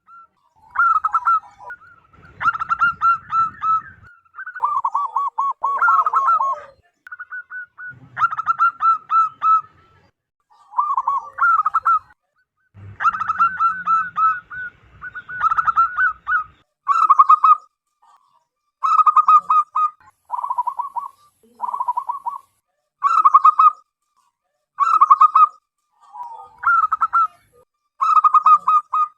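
Zebra dove (perkutut) singing: phrase after phrase of rapid, staccato cooing notes, each phrase about a second long with short pauses between.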